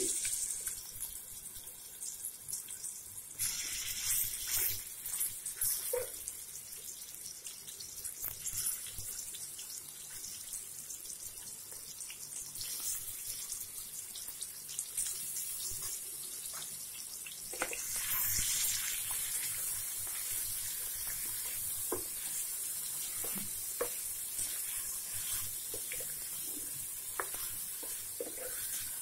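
Marinated chicken pieces sizzling in hot cooking oil in a metal pan, with scattered crackles. The sizzle swells about four seconds in and again about eighteen seconds in.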